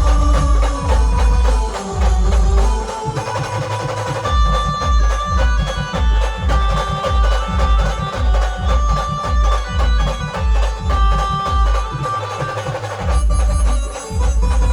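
Instrumental band music: heavy, steady drum beats with percussion, joined about four seconds in by a held melody line that drops out near the end.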